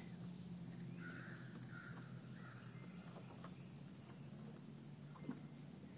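Insects droning in a high, steady, even chorus, with a faint low steady hum beneath, a few short mid-pitched sounds about a second in, and a small knock near the end.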